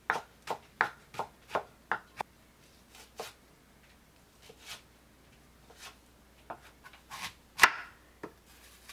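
A kitchen knife chopping julienned Korean radish against a wooden cutting board. Quick, even cuts come about three a second at first, then thin out to single strokes a second or so apart. One louder chop comes near the end.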